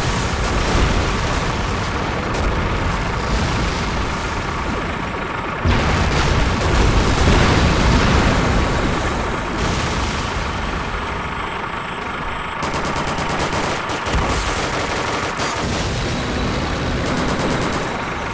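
Layered battle sound effects: rapid gunfire and machine-gun fire mixed with booms over a steady rumble of vehicle engines, getting suddenly louder about six seconds in.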